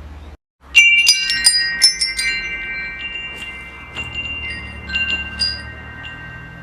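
Wind chimes: a rapid cluster of bright ringing strikes about a second in, then sparser single strikes while several notes ring on and slowly fade, over a faint low hum.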